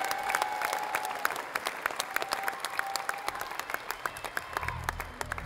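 Concert audience applauding with dense clapping and a few held cheers, heard through a smartphone microphone in a very loud venue. A low steady drone comes in near the end.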